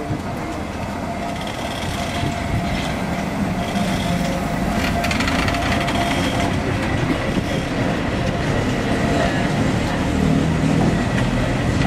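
Train rumbling alongside the platform, getting steadily louder, with scattered clicks.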